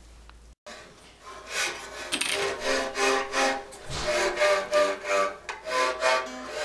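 Unfinished home-built wooden fiddle bowed with a green stick bow, playing a run of short notes at about two or three strokes a second. It starts about a second in, after a moment of quiet room tone.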